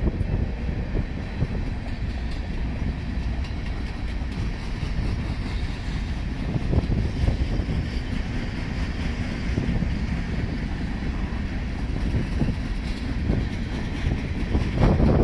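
Norfolk Southern coal train's hopper cars rolling past: a steady rumble of steel wheels on rail, with faint clicking as the wheels pass over the rail joints.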